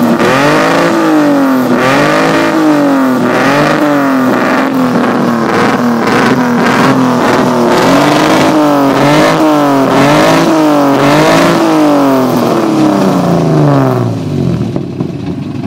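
Alfa Romeo 3.0 V6 'Busso' racing engine of a Group A Alfa 75, warming up and being revved over and over, the pitch rising and falling about once a second. Near the end the revs fall away and it settles to idle.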